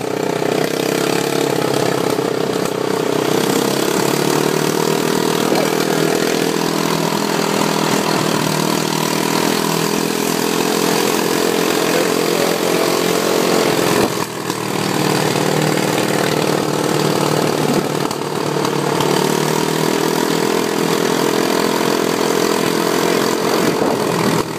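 ATV engine running steadily under way, with a brief drop in the engine note about halfway through before it picks up again.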